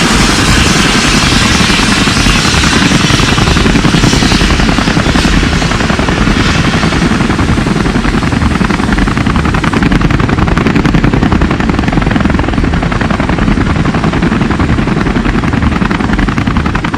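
Helicopter rotor chopping fast and loud, a steady rapid beat.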